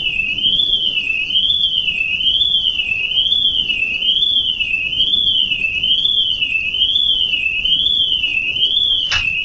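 Electronic alarm tone, high-pitched and warbling evenly up and down in pitch about once a second without a break. A single short click sounds near the end.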